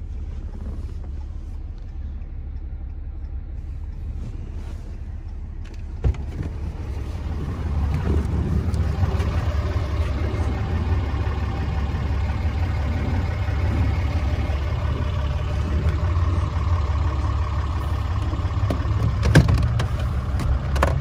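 Handling and rustling noise as a hand works along a pickup's rear bench seat and its fold-down release, over a steady low hum. There is a sharp click about six seconds in and a louder click near the end as the seat latch lets go.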